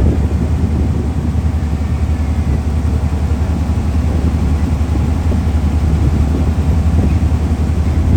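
A steady low rumble with a faint even hum above it, unchanging throughout.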